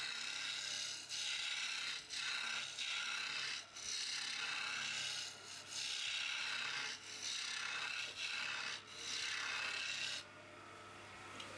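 A hand-held turning chisel cutting an oak spindle spinning on a lathe: a rough, hissing scrape as shavings peel off. It comes in strokes of about a second with short breaks between them and stops about ten seconds in, leaving a low hum.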